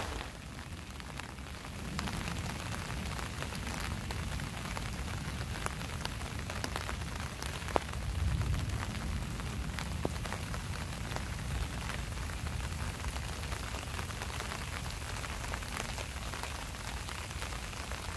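Steady rain falling, with many scattered single drops ticking through it.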